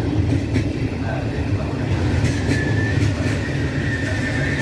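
Regional passenger train coaches rolling past, ending with the cab-control car. There is a steady rumble with clicks of wheels over rail joints, and a thin high squeal joins about halfway through.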